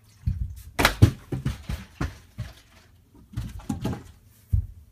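A partly water-filled plastic soda bottle, flipped into the air, landing on a tile floor and bouncing with a quick run of knocks, loudest about a second in. Further scattered thuds and knocks follow.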